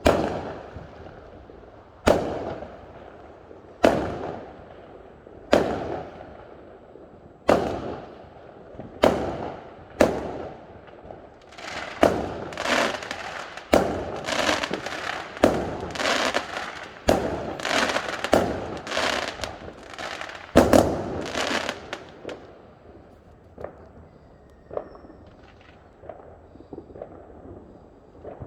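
Fireworks exploding: a series of sharp bangs, each followed by a rolling echo, about one every two seconds at first. In the middle they come in a quick run. Near the end only a few fainter pops remain.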